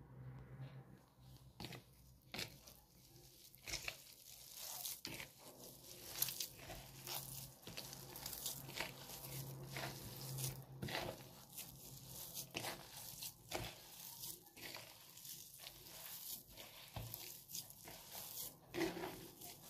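A bare hand kneading and squeezing a soft potato mixture with grated carrot and chopped herbs in a bowl: irregular squishing and soft smacking sounds.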